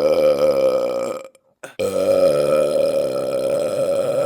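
Two long, drawn-out belches from a man. The first stops a little over a second in; after a brief pause the second starts and runs on for about three seconds.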